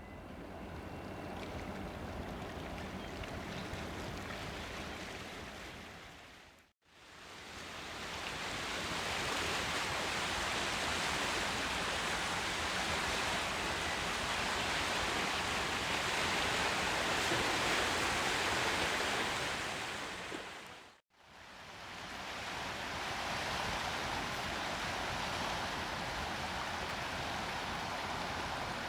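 River water washing and rushing, a steady noise without any clear tone, in three stretches cut apart by short fades about seven and twenty-one seconds in.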